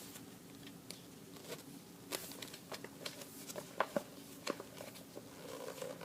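Faint handling of a glossy magazine's pages: soft rustling and crinkling with scattered light clicks and taps, busiest in the middle.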